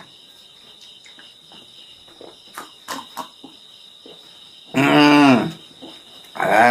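Small mouth clicks from the eater after a drink of water, then two short, low vocal sounds from the man about a second and a half apart, the first the longer and louder.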